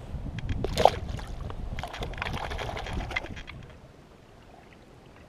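Wind buffeting the microphone, with a sharp splash about a second in and a second or so of splashing and spattering water as a rainbow trout is let go over the side of a kayak; the sound then drops to a faint hiss.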